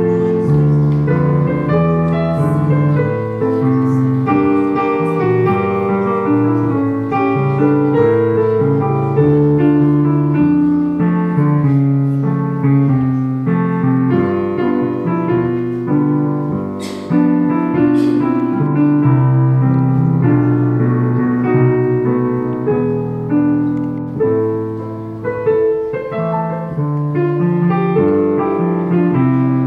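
Background piano music: a slow melodic piece of changing notes and chords, played throughout.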